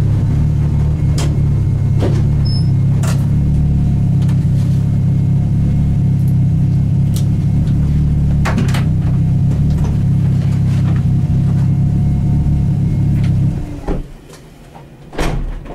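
Fiat Uno Turbo's engine running at a steady pitch with a deep drone and scattered clicks. About thirteen and a half seconds in, the drone stops abruptly and the level drops sharply, with one short knock near the end.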